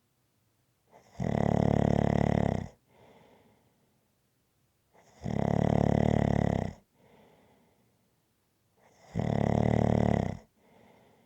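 Rhythmic snoring: three loud snores about four seconds apart, each lasting about a second and a half and followed by a softer breath out.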